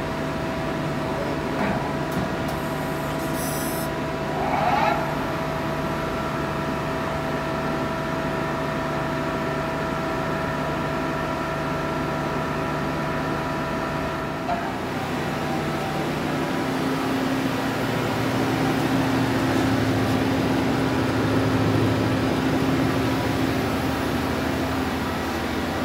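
Mighty Viper VT-30GL CNC lathe running with its spindle and chuck turning: a steady whine of several tones, with short rising whines about 2 and 5 seconds in. About halfway through the whine stops, leaving a lower steady machine hum.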